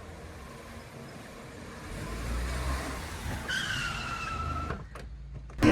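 A car pulling up and braking to a stop: a low engine and tyre rumble builds, then the brakes squeal for about a second before it goes quiet.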